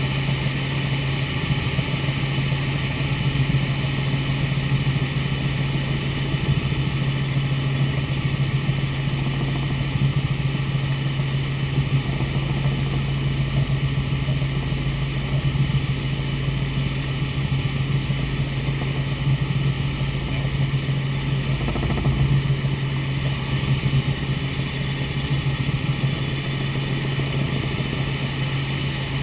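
Robinson R44 Raven II helicopter in cruise, heard inside the cabin: the steady drone of its rotors and six-cylinder Lycoming piston engine, holding an even pitch throughout.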